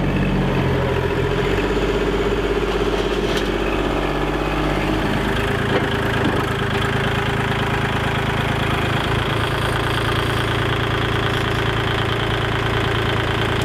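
Kubota L2501 compact tractor's three-cylinder diesel engine running steadily as the tractor drives up onto a trailer, its note changing about five seconds in.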